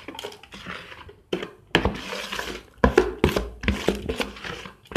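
A spoon scraping and clinking against a bowl and a jar as spice-coated raw mango pickle pieces are spooned into the jar: a run of irregular knocks and scrapes.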